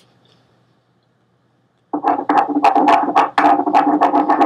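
About two seconds of near silence, then a pen scribbling fast and hard across paper on a desk, about five or six strokes a second, crossing out what was just written.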